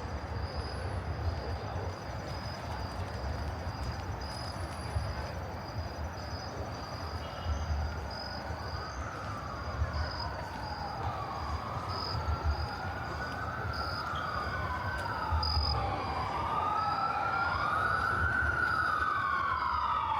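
An emergency-vehicle siren wailing, its pitch sweeping slowly up and down. It comes in about a third of the way in and grows louder toward the end, where two wails overlap. Under it, insects chirp steadily over a low city rumble.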